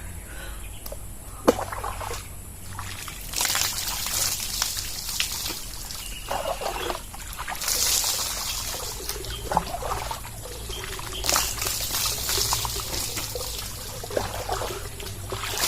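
Water poured over a person bathing at a deep well, splashing and trickling off in several pours a few seconds apart.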